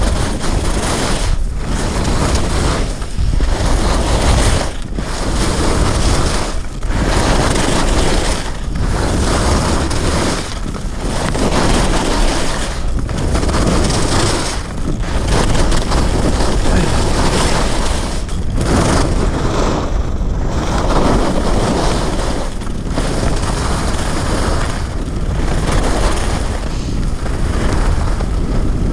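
Skis running down a groomed piste: the scrape of edges on snow swells and drops with each turn, about every two seconds, under heavy wind rumble on the camera's microphone.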